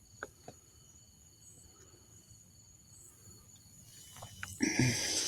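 Faint steady chirring of night insects, with a few small clicks, then a short louder rustle near the end.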